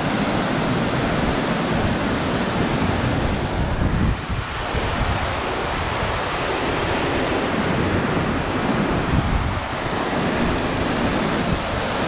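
Steady rushing of a large waterfall pouring into a pool, with wind buffeting the microphone in uneven low rumbles.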